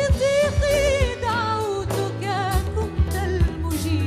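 A woman singing an Arabic Christian hymn with a wavering vibrato, over an instrumental backing of sustained bass notes and drum hits keeping a steady beat.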